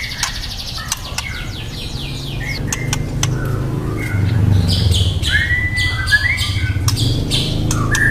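Young white-rumped shama singing: whistled notes, fast high trills and sharp clicks. A low rumble builds underneath from about two seconds in.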